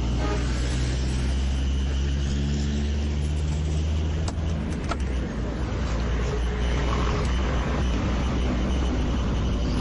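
Road traffic noise: motor vehicles running on a city road, with a steady low engine hum and two short clicks about halfway through.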